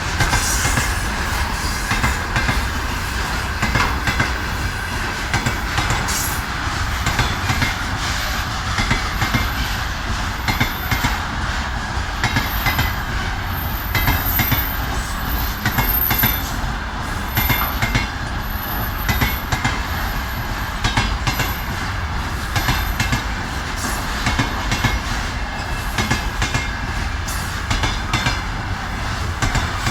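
Freight train rolling past, its wagon wheels clattering over the rail joints in a steady run of knocks, with a faint high wheel squeal on and off.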